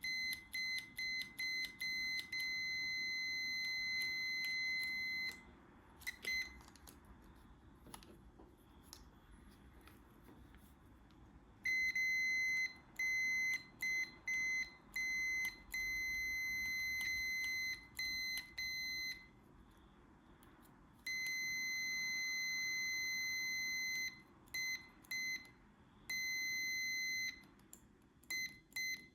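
Multimeter continuity beeper sounding across the brake light switch terminals: a high steady tone held for several seconds at a time, broken by runs of quick short beeps and by quiet gaps, as the switch contacts close and open when the plunger is worked.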